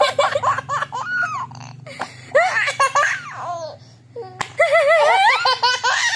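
A toddler laughing in high-pitched peals, in three bouts with a short pause in the middle.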